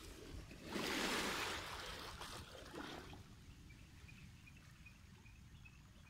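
Small sea wave washing in over a pebble shore, swelling about a second in and fading over the next two seconds, with a couple of smaller washes after it.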